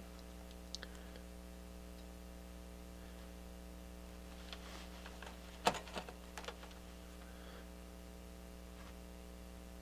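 Small clicks and taps of meter test probes on a receiver's circuit board, the loudest about halfway through, over a steady low mains hum.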